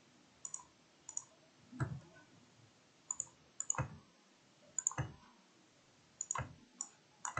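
Computer mouse buttons clicking at irregular intervals, about eight or nine sharp clicks, several in quick pairs.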